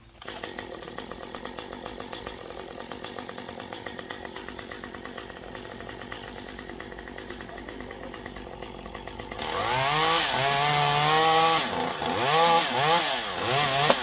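Chainsaw up in the tree running steadily at low speed, then from about nine and a half seconds in revved up and cutting into a limb, its pitch sagging under load and climbing again several times.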